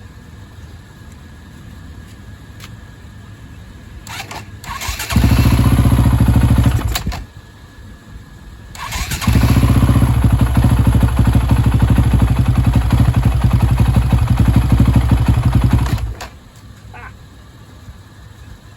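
A 2004 KTM 450 EXC's single-cylinder four-stroke engine firing up on a cold start after years of sitting, choke on. It catches and runs for about two seconds, then dies; a couple of seconds later it fires again, runs for about seven seconds, and cuts out suddenly.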